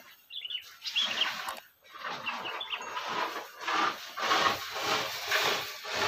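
Sooty-headed bulbul (kutilang) giving a few short, high chirps in the first half, over a louder rustling noise that swells in the second half.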